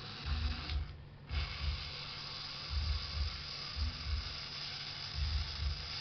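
Small glass-flask steam boiler heated over an open flame: a steady hiss with irregular low thumps about once or twice a second. The hiss drops out briefly about a second in.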